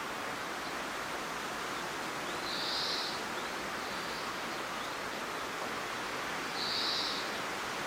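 Steady hiss of rain, with two short high-pitched calls from a small animal, about three seconds in and again near the end.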